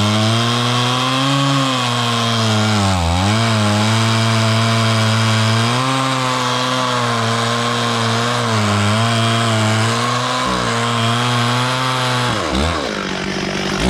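Stihl 440 two-stroke chainsaw running at high revs while cutting wood, its pitch dipping sharply about three seconds in as it loads. Near the end the revs drop off and then swoop up and down several times.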